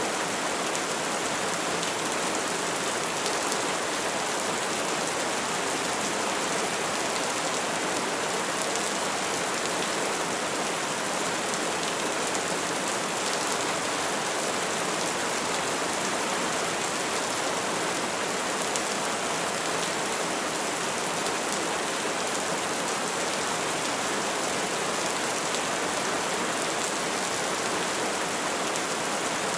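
Steady, heavy rainfall pattering on surfaces, an even hiss with no thunder in it.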